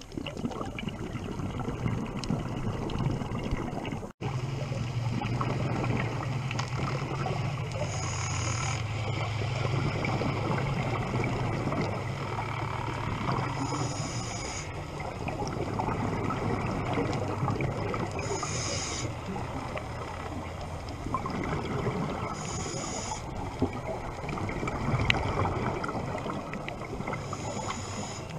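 Scuba diver breathing through a regulator, heard underwater from a camera in its housing: a short hiss of inhalation about every five seconds, with bubbling exhalation and a steady low hum in between. The sound drops out for an instant about four seconds in.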